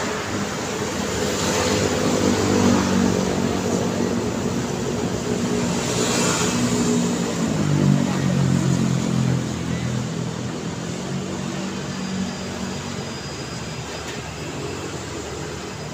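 Road traffic passing on a city street: motorcycle and car engines going by close, loudest in the first ten seconds, the engine note dropping as one passes about seven seconds in. After that, a fainter steady traffic hum.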